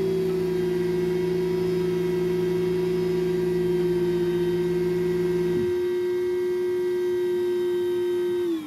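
CamperClean cassette-toilet emptying and cleaning station running through its cycle: a loud, steady motor whine with a lower hum beneath it. The hum cuts off abruptly about two-thirds of the way through, and near the end the whine winds down, falling in pitch.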